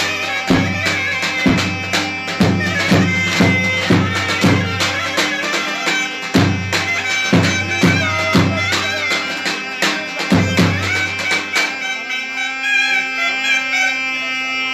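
Clarinet playing a Turkish folk melody live, over heavy drum strokes about once a second. The drum stops near the end and the clarinet carries on alone, with wavering ornaments.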